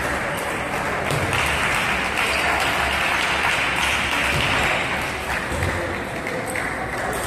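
Spectators applauding, swelling about a second in and easing off about five seconds in.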